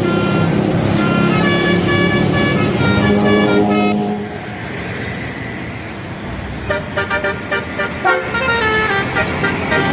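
Bus telolet horn playing a tooting melody of short notes that step up and down in pitch, stopping about four seconds in; after a couple of seconds of road and engine noise it starts again near the seven-second mark with quick, choppy toots.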